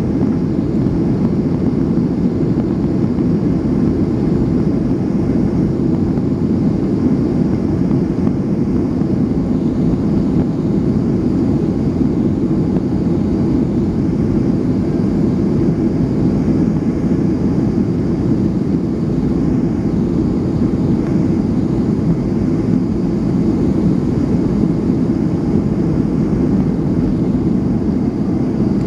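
Boeing 757 engines at takeoff power, heard from inside the cabin during the takeoff roll: a steady, loud, deep rumble.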